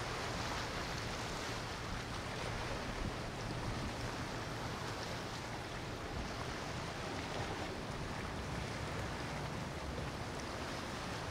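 Motorboat running on open water: a steady rush of water and wind over a low engine drone.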